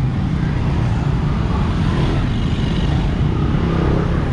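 Street traffic noise: a steady, loud low rumble of passing engines.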